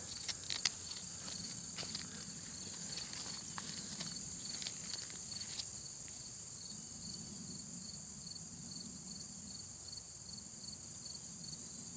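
Insects, crickets among them, chirping in a steady high chorus, with one repeating chirp about two to three times a second. A few light crackles and rustles come in the first half.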